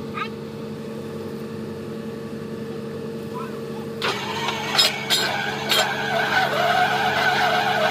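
Truck-mounted borewell drilling rig's engine running steadily; about four seconds in it picks up and gets louder, with a wavering whine and a few sharp metallic knocks over it.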